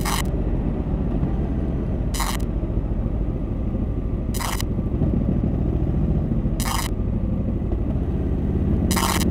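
Faulty DJI Action 3 action camera recording a short electronic chirp every two seconds or so, five in all, over a steady low rumble. The chirping is a fault in the camera, which turned out to be a faulty internal module.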